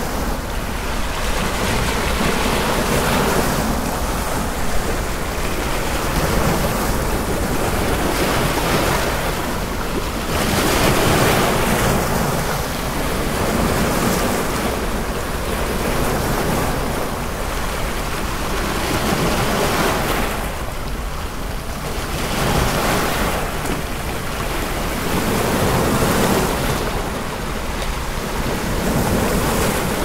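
Ocean waves washing in over a steady hiss of white noise, the surf swelling and easing every few seconds.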